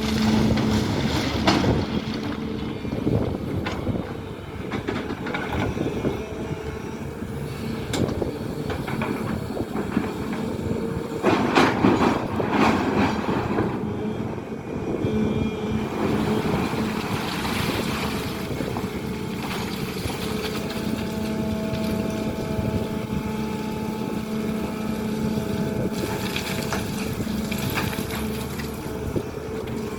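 SANY hydraulic excavator's diesel engine running steadily while it digs, with louder noisy surges about a second in and again around twelve seconds in.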